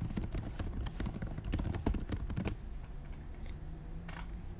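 Typing on a computer keyboard: a quick run of keystrokes for about two and a half seconds, then a couple of single key presses near the end.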